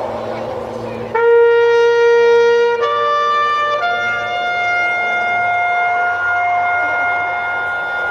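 A brass horn sounding long, steady notes that step upward in pitch. The third and highest note is held for about four seconds.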